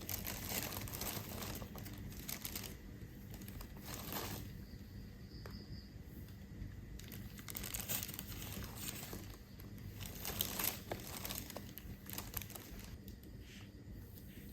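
A plastic bag crinkling and rustling in irregular spells as a cat moves about inside it.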